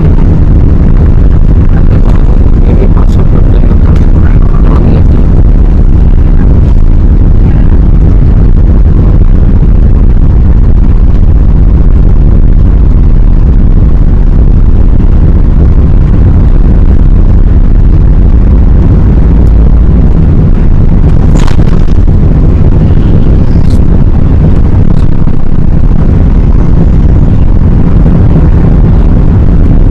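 Steady, loud, deep rumble of jet engines and airflow heard inside the cabin of an Airbus A380 airliner.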